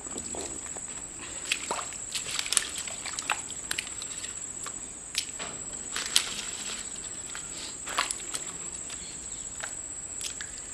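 Bare feet moving in wet mud at the pond's edge: scattered squelches, small splashes and sharp clicks, the loudest about six seconds in. A steady, high, thin whine runs underneath.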